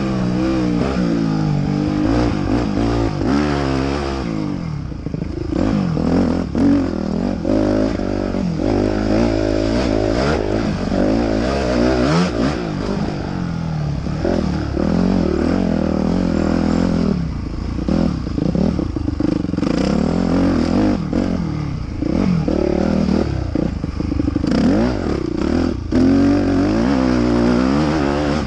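Dirt bike engine revving up and falling back again and again as the rider works the throttle and gears, with scattered clattering knocks throughout.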